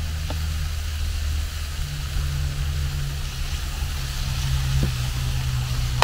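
A low, steady engine hum, strengthening about two seconds in, over a faint sizzle of meat frying in a pan.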